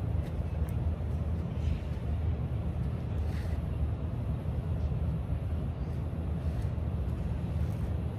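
Steady low outdoor rumble, the kind of street or wind noise picked up while walking outside, with a few faint ticks above it.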